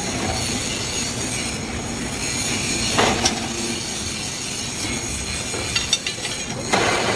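Workshop machinery assembling an excavator track chain: a continuous metallic machine noise with a steady high whine, broken by a sharp metal clank about three seconds in and another near the end, with a few lighter clicks just before it.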